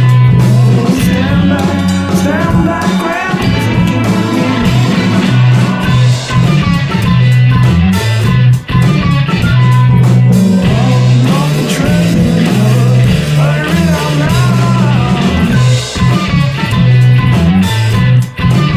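Psychedelic rock recording: a strong, steady bass line under electric guitar, drums and a wavering flute melody.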